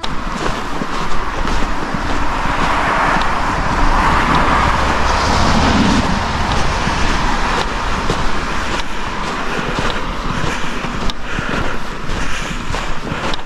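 Traffic noise from a motor vehicle passing close by: a steady rush that swells about four to six seconds in and then eases off.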